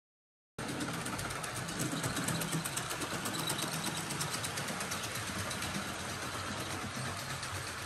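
Model Union Pacific steam locomotive and passenger cars running along the track: a steady motor whir and rolling rattle with fine, rapid ticking, starting abruptly about half a second in.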